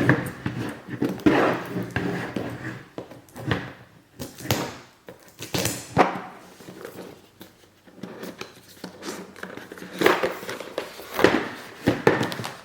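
Cardboard jigsaw puzzle box being opened and handled: irregular rustling and scraping, with a few sharp knocks.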